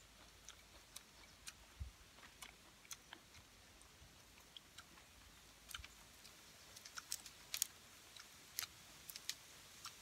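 Faint, scattered clicks and crackles of steamed shrimp being eaten: chewing, and shells snapping as they are peeled by hand. Sharper clicks come close together in the last few seconds.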